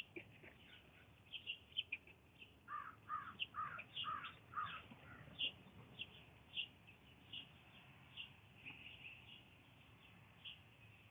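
Blue jay calling: a run of five calls at about two a second a few seconds in, among short, higher chirps scattered throughout.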